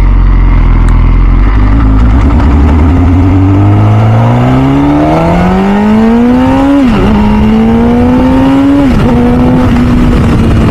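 2006 MV Agusta F4 CC's 1078 cc inline-four engine pulling away from a stop under acceleration. Its pitch rises steadily and drops sharply at two upshifts, about two-thirds of the way through and near the end, then runs at a steadier pitch.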